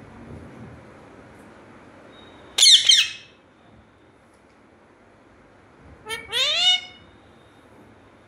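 Pet ring-necked parakeet giving two loud squawking calls, about three and a half seconds apart. The first is short. The second is a quick run of notes, each rising in pitch.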